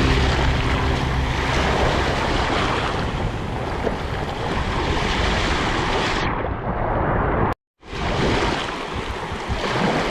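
Sea surf: a steady rush of waves washing in. It cuts out to silence for a moment about three-quarters of the way through, then resumes.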